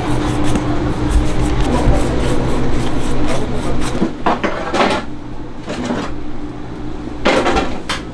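Bakery work noise: a steady machine hum under a few short clattering knocks, the loudest about seven seconds in.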